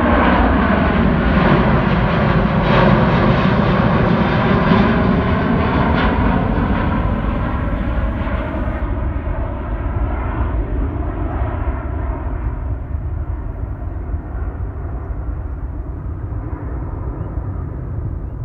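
Boeing 777-200ER's twin turbofan engines at takeoff thrust as the jet climbs away: a loud rumble with whining tones that glide downward in pitch, then fading steadily as it recedes.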